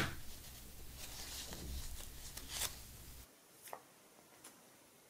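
Paper leaflets rustling and swishing as they are handled and leafed through, with a sharp tap at the start. About three seconds in, the low background hum cuts out and only a few faint paper ticks follow.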